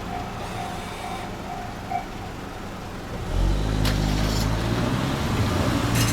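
Japanese railway level-crossing warning bell ringing its pulsed ding, about two strokes a second, that stops about two seconds in, as the train has cleared. About a second later a road vehicle's engine starts pulling away across the crossing, with a few sharp clatters as its wheels go over the rails.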